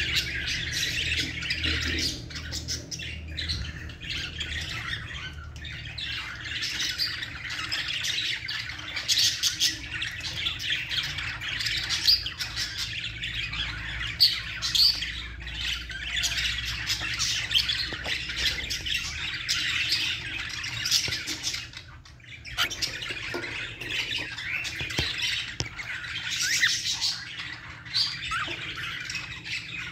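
A group of cockatiels chattering and squawking without a break, with a short lull about two-thirds of the way through, over a steady low hum.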